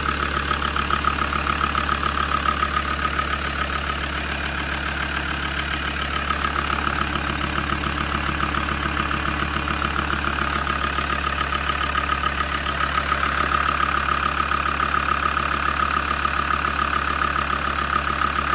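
Land Rover Defender Td5 five-cylinder turbo-diesel idling steadily with an even diesel clatter. This is the engine running again just after its first start following a head rebuild with a new camshaft and injectors.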